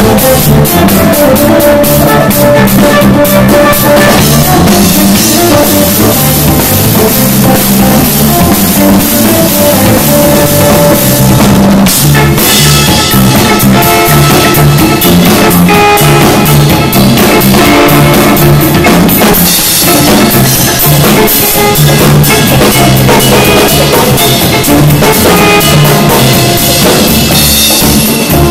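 Live band playing a loud dub jam: a drum kit keeps the beat over a repeating low bass line, with electric guitar.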